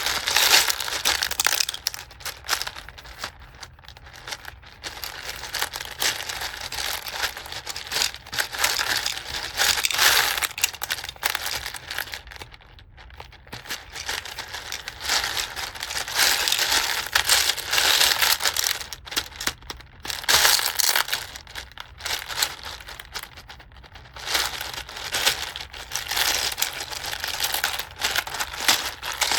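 Plastic packaging crinkling and crumpling as it is handled, in bursts of a few seconds with short pauses between.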